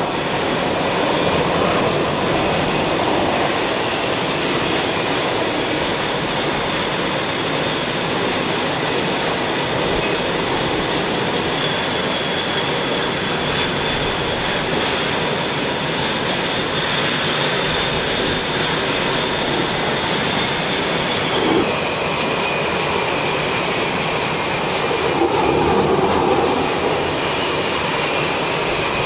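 Jet fighter engines running steadily on a carrier flight deck: a constant rush of jet noise with thin high whining tones. A new whine joins about two-thirds of the way through, and there is a brief swell near the end.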